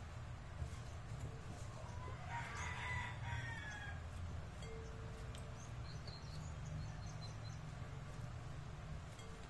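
A single long animal call, about a second and a half, starting a little over two seconds in and falling slightly at its end, over a steady low hum.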